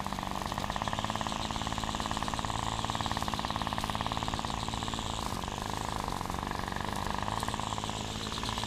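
Petrol lawnmower engine running steadily while mowing, with a fast, even firing rhythm. Near the end its pitch falls as the engine slows.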